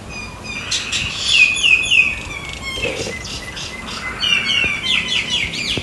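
Several birds chirping and singing: overlapping calls of quick, repeated looping notes that are busiest from about a second in.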